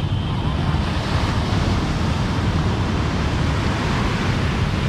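Surf breaking and washing up a sandy beach, with wind rumbling on the microphone.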